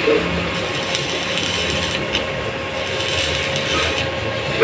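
Stick (arc) welding on a steel motorcycle exhaust muffler: the arc crackles and sizzles steadily as a hole is filled.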